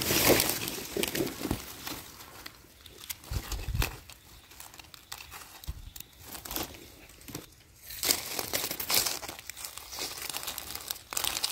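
Dry leaf litter crinkling and rustling, with scattered small crackles, as hands dig through it and pick and trim mushrooms from the forest floor.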